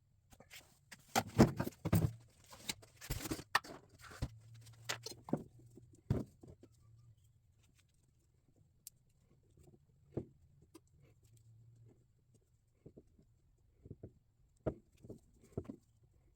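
Handling noise of tools and wiring being worked by hand: irregular clicks, knocks and rattles, busiest in the first few seconds, then scattered light ticks, over a faint low hum.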